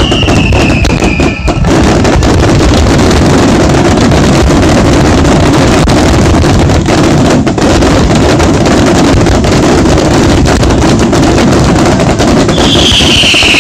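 Finale barrage of fireworks: bursts so dense they merge into one loud, steady din that overloads the smartphone microphone. A falling high whistle sounds in the first second or two and again near the end.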